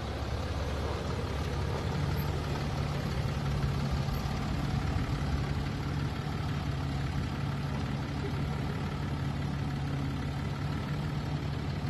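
Land Rover Discovery 4's diesel engine running at a low, steady drone under load as the SUV crawls up a steep dirt slope; the hum firms up about a second and a half in and then holds even.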